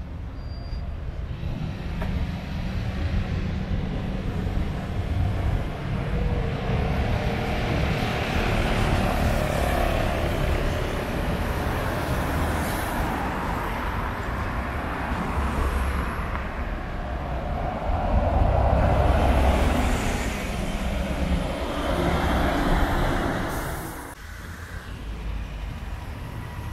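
Road traffic on a city bridge: cars and a bus passing in swells, loudest twice, around the middle and again before dropping away sharply near the end.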